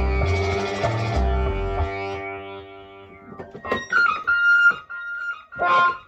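Instrumental electronic music on synthesizers. A dense passage with a pulsing bass line and held tones fades out over the first three seconds. Then sparse, short plucked-sounding notes come in, each trailed by echoes.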